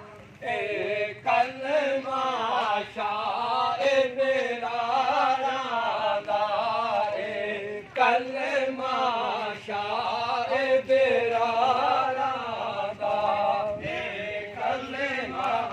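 A group of men chanting together in a walking procession, their voices rising and falling in long phrases that break off briefly every few seconds; a solemn chant of men walking with a funeral bier.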